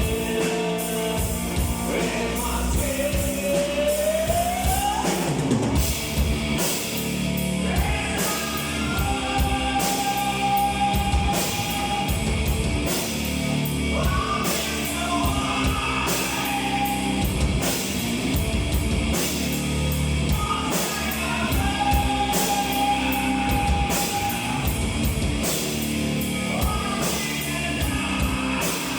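Live rock band playing, with drum kit and cymbals keeping a steady beat under electric guitars and bass. Long held notes ride on top, one sliding upward about four seconds in.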